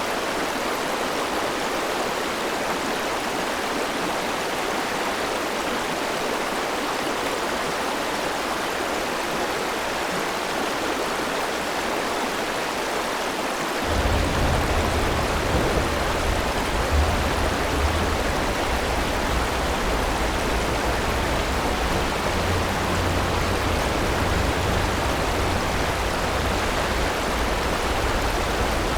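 River water rushing steadily over stones. About halfway through, a low rumble comes in suddenly under the water sound and stays.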